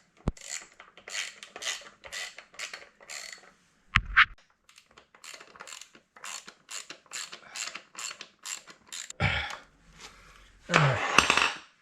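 Rapid repeated short scraping strokes of hand work on the Onewheel's rails, about three a second, with a sharp knock about four seconds in and louder handling noise near the end.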